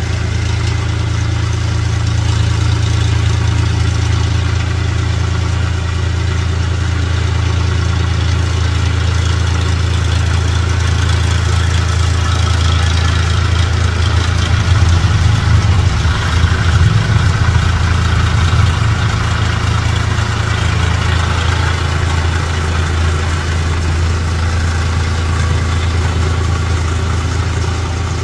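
Swaraj 963 FE tractor's three-cylinder diesel engine running steadily under load while its rotary tiller churns through a flooded paddy field, puddling the mud for rice planting. About halfway through, the engine gets louder and rougher for a few seconds, then settles back.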